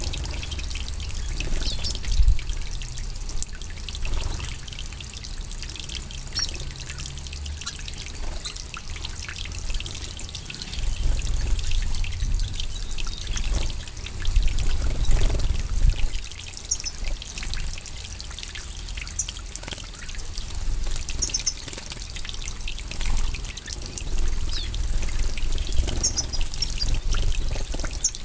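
Water spraying and trickling steadily into a shallow pool in a bird aviary, with a low rumble that swells twice. A few brief high bird calls come through the water.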